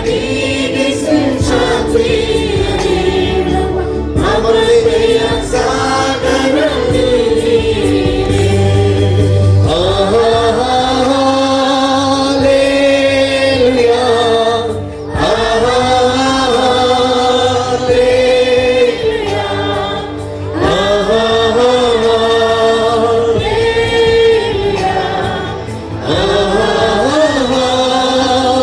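A group of worship singers singing a Kannada Christian praise song over instrumental accompaniment, holding long sung notes between short breaths.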